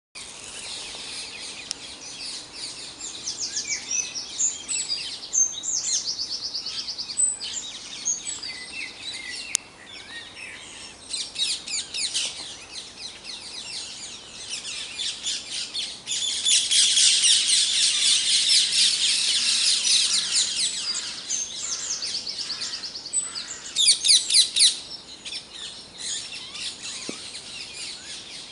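Dawn chorus: many songbirds singing at once in overlapping chirps, whistles and trills. The song thickens into a dense, louder stretch about halfway through, and one bird gives a brief, loud, fast trill shortly after.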